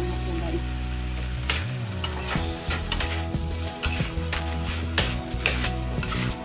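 Ground pork and diced vegetables sizzling in a stainless steel wok while a metal spatula stirs them, scraping and clinking against the pan again and again, more busily from about a second and a half in.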